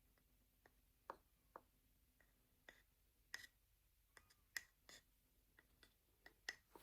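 Faint, irregular light taps and clicks, about a dozen short sharp ones.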